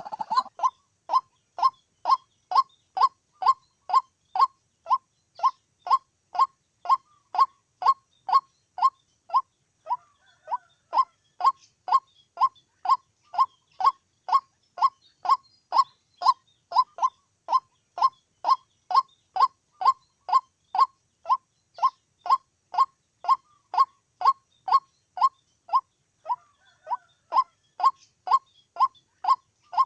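White-breasted waterhen (chim quốc) calling, a single short note repeated about twice a second in a steady monotonous series.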